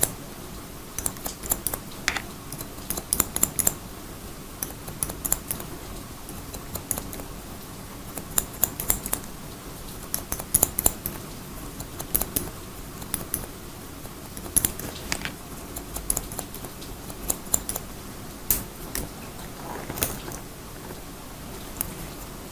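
Haircut scissors snipping in quick clusters of crisp clicks, pausing between bursts, over a steady hiss of rain.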